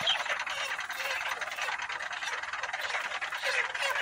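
Flock of broiler chickens in transport crates calling over one another: a dense, continuous chorus of many short overlapping calls.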